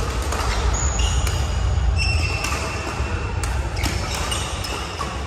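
Badminton rackets hitting shuttlecocks, several sharp clicks, with short squeaks from court shoes on the hall floor about a second and two seconds in. A steady low rumble runs underneath.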